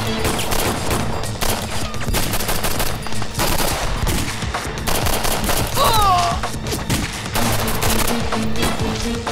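Sustained gunfire in a firefight: rapid, overlapping bursts of automatic weapons fire, over a dramatic music score. A brief high sliding sound cuts through about six seconds in.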